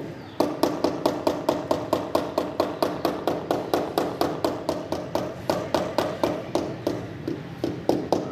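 A hand tool tapping steadily on a wall tile, about five taps a second, as a mason beds the tile into its mortar.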